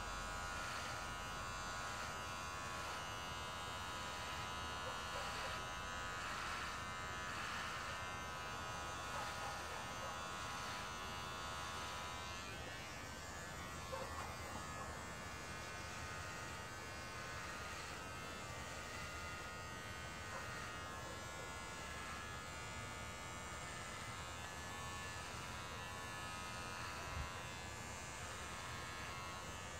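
Electric hair clippers running steadily as they shave a man's head down to the scalp.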